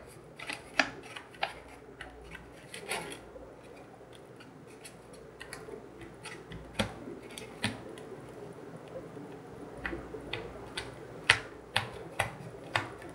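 Fingers pressing candy dough flat in a thin plastic candy-kit mould tray, with scattered small clicks and taps of the plastic, coming more often and sharper in the second half.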